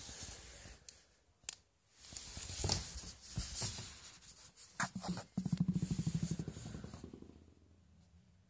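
Scuffling and rubbing with a few sharp clicks, then a small ball bouncing to rest: a rapid run of soft taps that fade out over about two seconds.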